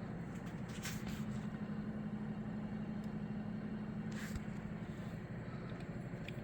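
Steady low machine hum, with a few faint light clicks and a brief hiss about a second in and again about four seconds in.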